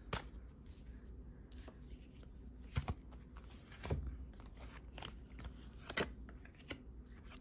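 Tarot cards being handled: scattered soft clicks and papery slides as cards are drawn from the deck and laid onto the table.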